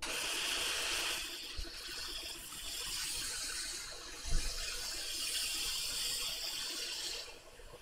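Hot air rework station blowing a steady hiss of hot air onto a circuit board to desolder a shorted MOSFET. There is one low bump about four seconds in, and the airflow dies away near the end.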